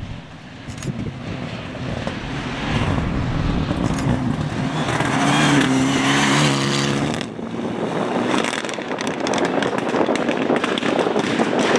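Renault Mégane rally car's engine at speed, growing louder as it approaches and loudest as it passes close, about five to seven seconds in. After that the engine tone gives way to a crackly, noisy sound as the car drives away.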